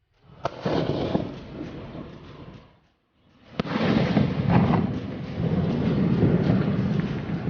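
Aerial firework skyshots bursting: a sharp bang about half a second in, then a rumble of small pops. After a brief silence a second bang comes, followed by a longer, louder stretch of rumbling crackle.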